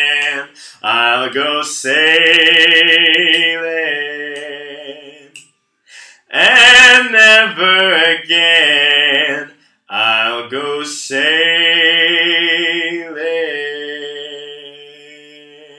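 A man's solo voice singing a cappella in three long phrases with vibrato; the last note is held and fades away near the end.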